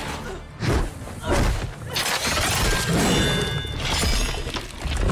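Film battle sound effects: a string of loud crashing, shattering impacts, with a brief high ringing tone about three seconds in.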